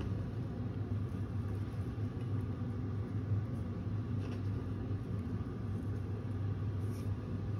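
A steady low hum with a faint haze over it, and a couple of faint light ticks.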